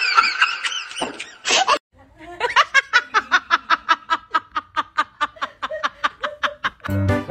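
A person laughing: a long, rapid run of 'ha' bursts at about four or five a second, after a short burst of high, busy voice sounds at the start. Music with a steady beat comes in just before the end.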